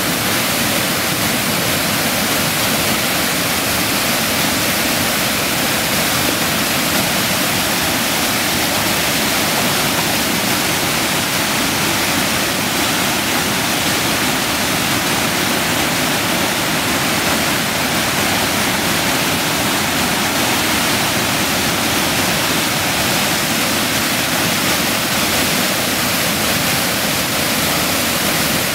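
River waterfall rushing loudly and steadily as whitewater pours over rock ledges.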